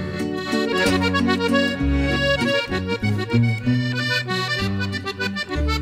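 Accordion playing the melody over band accompaniment, in an instrumental break between the song's sung verses.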